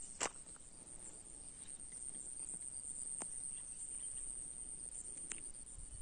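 Calm forest ambience by a still pool: insects keep up a steady high-pitched chorus, with a few faint sharp clicks.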